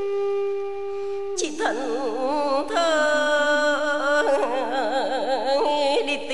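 Traditional Vietnamese music for poetry chanting: a steady held note, then about one and a half seconds in a louder melodic line with heavy wavering vibrato and pitch slides.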